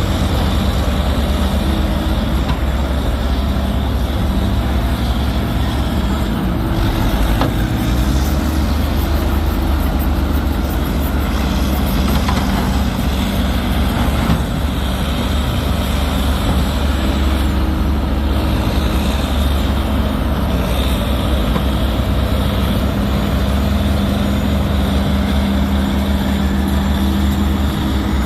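Engine of a Massey Ferguson digger running steadily while it digs, with small shifts in pitch as the load changes.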